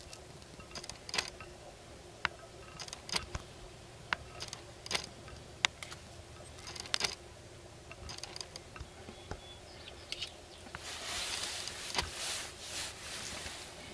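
Sharp-tailed grouse displaying on a lek: scattered sharp clicks and pops, then about eleven seconds in a dry rattling buzz lasting a couple of seconds, as males stamp their feet rapidly and rattle their tail feathers in the dance.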